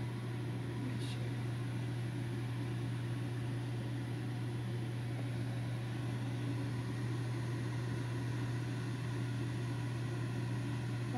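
A small motor running with a steady low hum and a faint hiss. A brief faint click comes about a second in.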